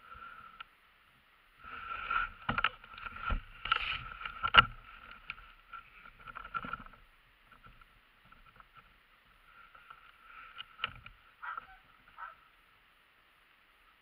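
Handling noise close to the microphone: rustling with sharp knocks, in two spells. The loudest knock comes about four and a half seconds in.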